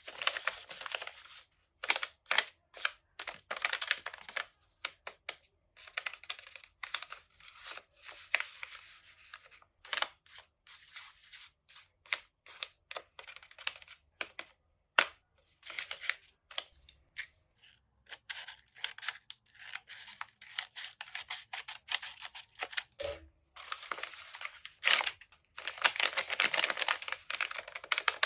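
Paper being handled up close: crinkling and tearing in irregular bursts, with many sharp clicks.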